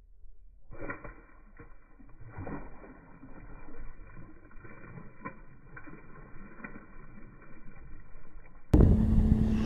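Faint, muffled water splashing with a few soft knocks as a summer flounder (fluke) drops back into the sea beside a pier and swims off. Near the end it cuts suddenly to louder wind noise and a steady engine hum.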